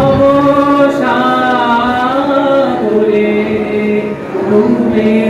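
Voices singing a slow melody with long held, wavering notes.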